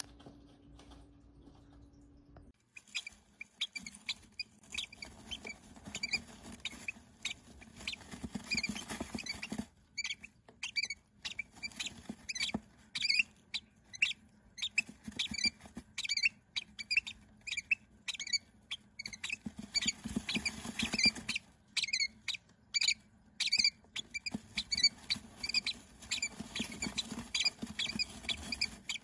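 Peach-faced lovebird nestlings peeping: short, high squeaky begging calls repeated several times a second, starting about two and a half seconds in.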